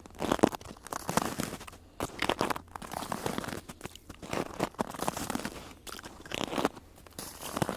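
Footsteps crunching in snow at a steady walking pace, about one step a second.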